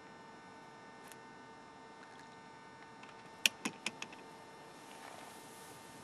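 Steady electrical hum, with a faint click about a second in and a quick run of four sharp clicks a little past the middle.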